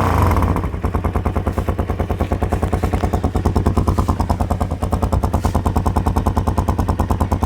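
Italika DM200 motorcycle's single-cylinder engine idling just after starting, with a slightly higher note for the first moment before it settles into an even, pulsing idle. The muffler has been drilled with three holes, which makes the exhaust a bit hoarser than stock.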